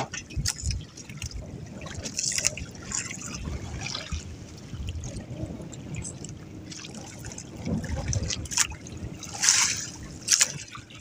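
Water lapping and splashing against the hull of a small wooden outrigger boat on a choppy sea, in irregular surges, with wind rumbling on the microphone.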